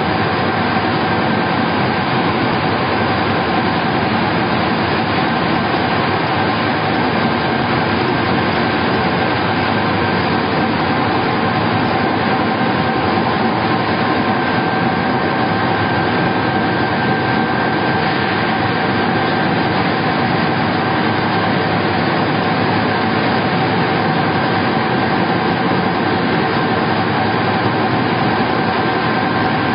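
LS-550 vertical wood pellet mill and its 8 m belt conveyor running under load, feeding sawdust: a steady, unbroken machine din with a constant whine running through it.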